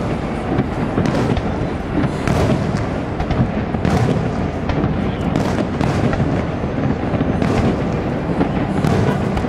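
Aerial firework shells bursting one after another, a dense run of booms and crackles overlapping into a continuous low rumble.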